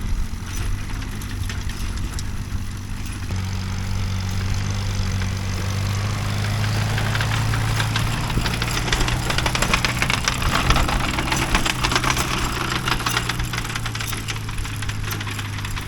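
Tractor engine running steadily while pulling a manure spreader that is spreading. A dense rattling clatter from the spreader builds up through the middle and eases off again toward the end.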